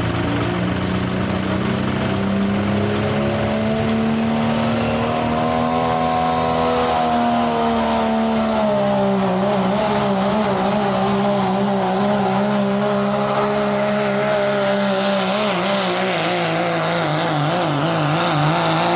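Turbocharged diesel pickup pulling a sled at full throttle. The engine climbs in pitch over the first several seconds with a rising high whistle, then holds high with a fast wavering in pitch while it pulls.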